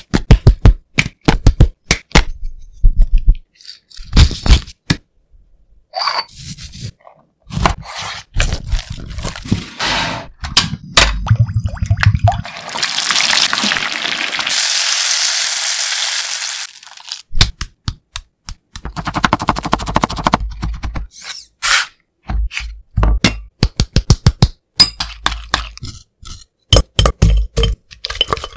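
Close-up cooking sounds: first a quick rattle of seasoning shaken from a bottle over raw chicken in a glass bowl, then chicken drumsticks sizzling in hot frying oil for several seconds midway, and near the end clinks and scrapes of the fried pieces being tossed in a glass bowl.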